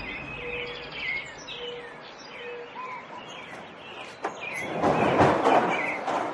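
Birds chirping in short calls over outdoor ambience, with a sharp click about four seconds in and a rushing noise that swells up and fades near the end.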